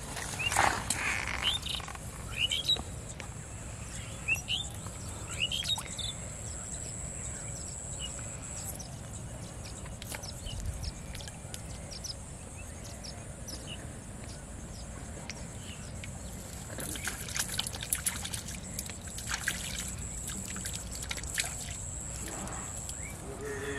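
Rural outdoor ambience by a canal: small birds chirp in the first few seconds over a steady high-pitched tone, and a cluster of light clicks and small water sounds comes later.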